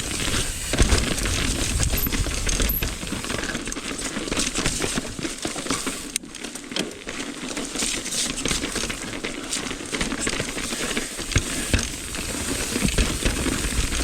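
Mountain bike rolling down a dirt trail: tyres crunching over wet dirt and gravel, with the chain and bike rattling and clicking over bumps, and rumbling wind on the microphone.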